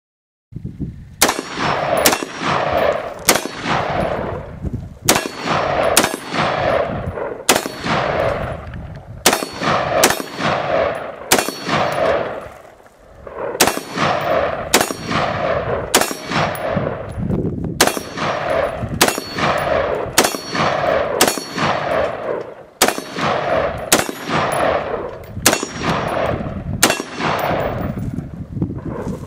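Bushmaster AR-15 rifle fired semi-automatically in a long string of shots, single and in quick pairs less than a second apart, each shot trailing off in an echo; there is a pause of about a second and a half near the middle.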